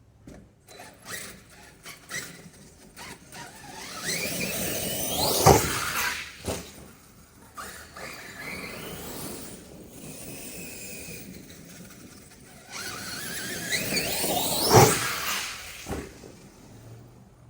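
Arrma Kraton RC truck accelerating twice, its electric motor whine rising steeply in pitch each time. Each run ends in a loud thump, with smaller knocks and rattles between the runs.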